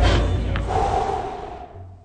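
Background music with a deep, heavy low end, fading away steadily to near quiet.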